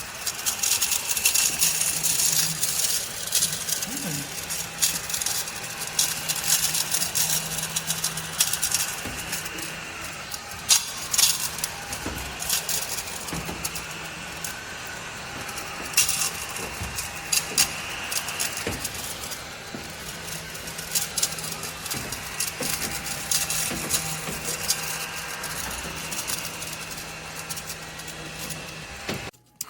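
A small battery-powered desktop vacuum cleaner running with a steady low hum, overlaid by many sharp clicks and rattles.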